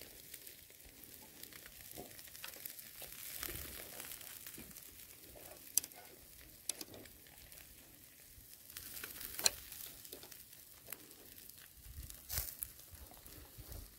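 Lenok fish on metal skewers sizzling over hot charcoal in a mangal: a faint steady hiss broken by several sharp crackles and pops from the coals and dripping fat.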